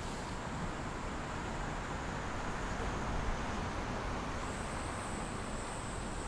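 Road traffic on a busy city street: a steady hiss of tyres and engines that swells briefly near the middle as a vehicle goes by.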